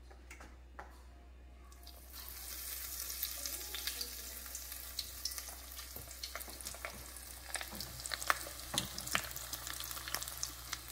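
A panko-breaded asparagus spear frying in hot vegetable oil in a pan. The sizzle starts about two seconds in, a steady hiss dotted with many small pops and crackles.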